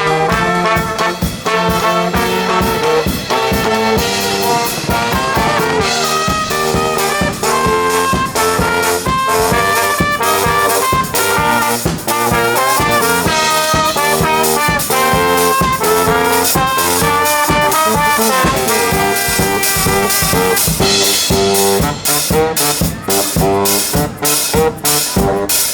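Brass band playing a lively tune live, horns carrying the melody over a steady drum beat.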